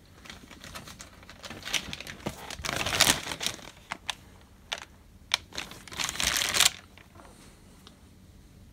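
Clear plastic packaging bag crinkling as it is handled, in irregular rustles and sharp crackles. It is loudest about three seconds in and again around six seconds in, and stops about seven seconds in.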